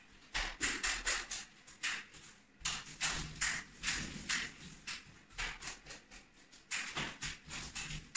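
Facade roller on a telescopic pole rolling thinned joint compound over drywall ceiling joints: a sticky, crackling hiss with each pass, repeated in quick strokes with short pauses.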